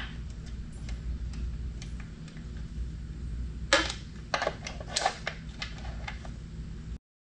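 Scattered plastic clicks and rattles of electrical connectors and wiring being handled and pushed into an e-bike's frame compartment, with a busier run of clicks in the middle, over a steady low hum.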